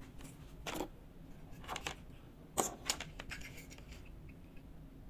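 Tattoo machine kit parts being handled and fitted together by hand: a scattering of short, faint scrapes, rustles and small clicks, the clearest about two and a half seconds in.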